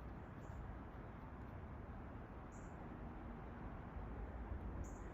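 Faint outdoor ambience: a low steady rustle with three short high chirps spaced about two seconds apart.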